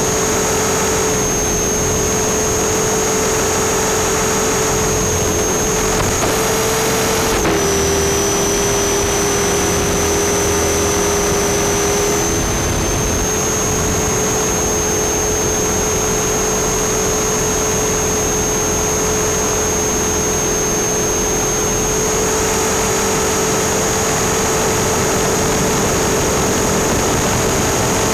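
RC helicopter in flight heard through its onboard camera: a steady, loud whine of motor and rotor. The pitch dips briefly about seven seconds in and shifts slightly again around twelve and twenty-two seconds.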